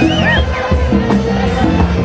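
Loud music with a repeating bass line and a steady beat, with a crowd's voices underneath.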